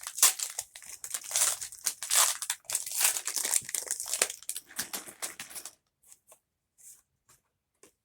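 Foil Pokémon card booster pack being torn open and its wrapper crinkled, a dense crackle of tearing and crumpling that runs for about six seconds and then gives way to a few faint light ticks.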